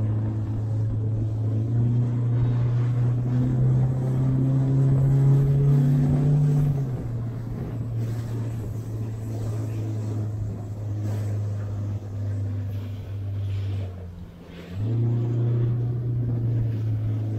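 A small boat's outboard motor running under way. The pitch rises about two seconds in and settles back lower around seven seconds, and near the end the engine is throttled right down for about a second, then opened up again.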